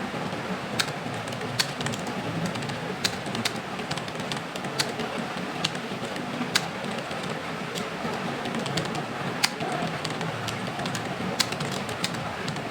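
Scattered keystrokes on a computer keyboard: sharp, irregular clicks about one a second, over steady background noise.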